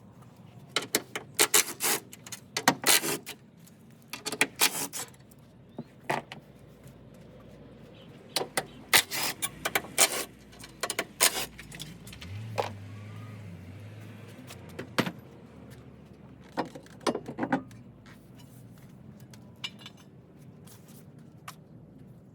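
Metal hand tools clinking and clattering: sockets, ratchets and bolts being handled in sharp bursts. A cordless ratchet's motor runs steadily for about two seconds a little past the middle.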